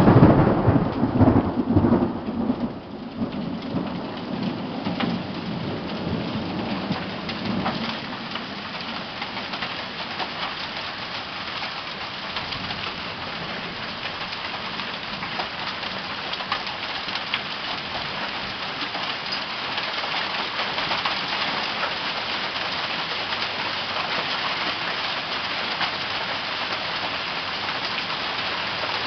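Hail and heavy rain pelting down in a dense, steady patter. A loud low rumble fills the first two or three seconds, then dies away.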